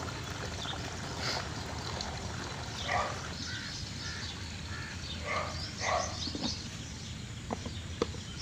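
Water running from a hose into a plastic backpack sprayer tank, against steady outdoor background noise with a few short animal calls. Near the end come a few light clicks as the tank's lid is handled and fitted.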